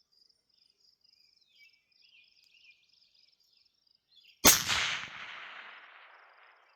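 A single rifle shot from a Barrett MRAD about four and a half seconds in, its report rolling away in a long decaying echo. Before the shot, insects trill steadily with a few faint chirps.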